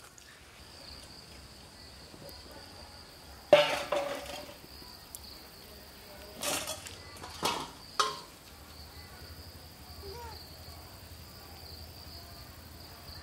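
Insects keep up a steady, high-pitched drone. A few brief, louder sounds break through about three and a half seconds in and again twice around seven to eight seconds in.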